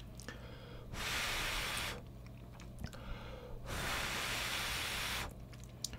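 A person blowing twice on a clump of hot ramen noodles held up on chopsticks, two long even breaths each lasting about a second and a half, to cool them before eating.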